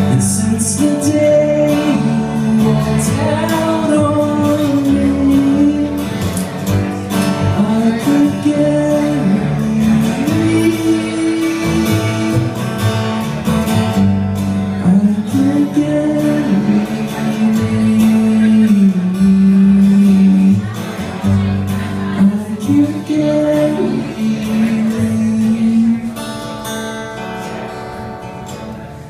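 Live acoustic song: a man singing, with a strummed acoustic guitar and a plucked upright double bass. The music gets quieter in the last few seconds.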